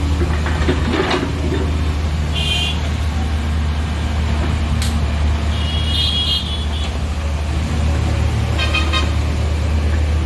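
Heavy diesel engine of an earthmoving machine at a loading site running steadily with a deep hum. Three brief high-pitched tones cut through it, near the start, midway and near the end.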